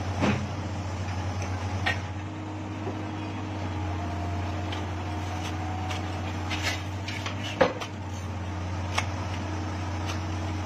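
Komatsu PC200 excavator's diesel engine running steadily, with a steady whine coming in about two seconds in. Scattered metallic clinks and knocks from the pile-driving rig, the sharpest about three-quarters of the way through.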